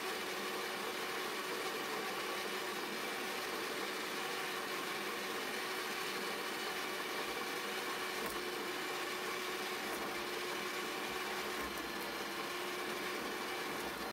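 Electric stand mixer running at a steady speed, its beater whipping butter for buttercream; an even motor hum with a steady whine.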